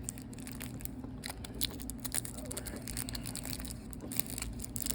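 Trading card packaging being worked open by hand: scattered crinkling, crunching and tearing rustles of the wrapping.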